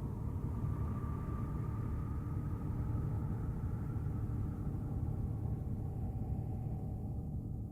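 A so-called planet sound: a deep, steady rumbling drone with a few faint tones drifting slowly in pitch above it.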